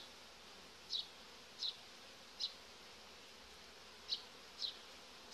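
Honeybees buzzing faintly and steadily over the open frames of a hive, with five short high-pitched chirps scattered through.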